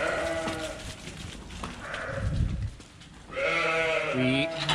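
Sheep bleating: one long bleat at the start and another from about three and a half seconds in that drops in pitch near its end, with a brief low rumble between them.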